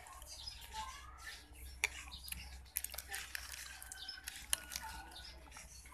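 Faint mouth sounds of sipping from a small drink carton through a straw, with scattered small clicks and crinkles.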